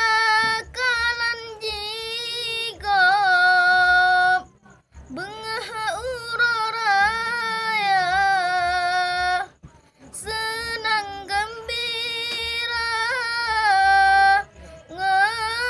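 A boy's solo voice chanting in long, high, held melodic phrases with wavering ornaments on the held notes, broken by short breath pauses about four and a half, ten and fourteen and a half seconds in.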